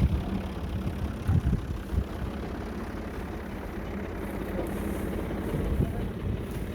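Tractor-driven wheat thresher running: a steady low mechanical drone, with a few heavier thumps in the first two seconds.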